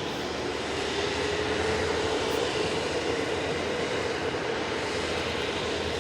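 Aircraft turbine engine noise running steadily, with a faint whine that rises slightly in pitch.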